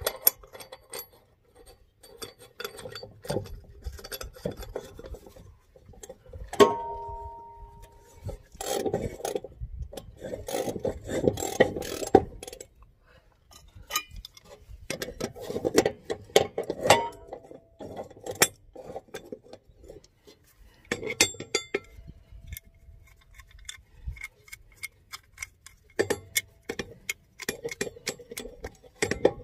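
Metal hand tools working on a mower's blade bolt: scattered metallic clinks and clicks, a ringing clank about seven seconds in, and several bouts of metal-on-metal scraping and rasping.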